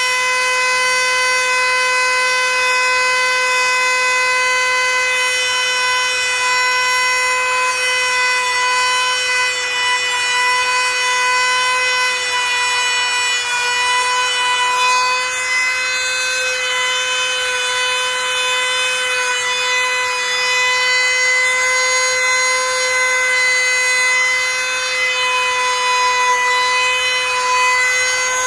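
A power tool's motor running with a steady whine, dipping slightly in pitch about halfway through.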